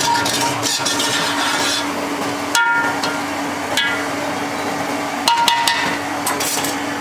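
Metal spoon stirring and scraping parboiled sweet rice in an aluminium pot, with several ringing clinks in the second half as it knocks against the pot, over a steady low hum. The rice is being turned to dry off its last water before it goes on dum.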